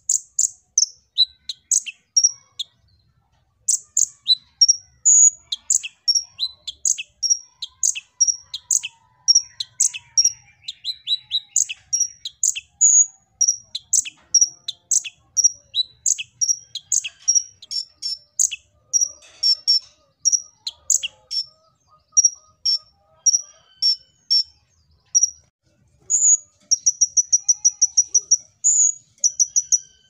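Male purple-throated sunbird (kolibri ninja) singing: a long run of sharp, high chirps about two a second, breaking into a fast, even trill near the end.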